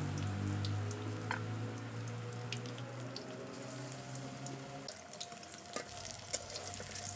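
Battered eggplant slices (beguni) sizzling and crackling in hot oil in an iron karahi, with more slices added to the oil toward the end. A low steady hum runs under it for about the first five seconds.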